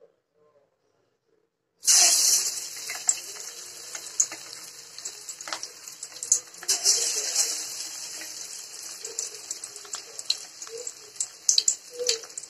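Masala-coated fish pieces deep-frying in hot oil in an aluminium kadai: the oil starts sizzling loudly and suddenly about two seconds in as the first pieces go in, then keeps sizzling with scattered crackles and pops as more pieces are added.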